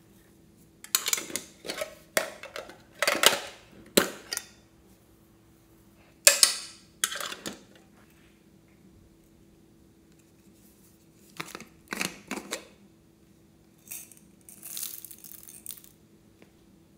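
Small plastic topping containers clicking and clattering in several short bursts as they are handled, tapped and shaken to sprinkle glitter onto slime in a glass dish. Near the end there is a softer rattling spell.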